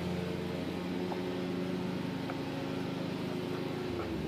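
Steady mechanical hum of a running motor or engine, even in pitch throughout.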